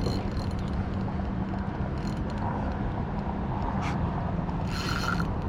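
Spinning reel working while a hooked jack is fought to the boat: a mechanical clicking and whirring of the reel's gears and drag over a steady low hum and rumble.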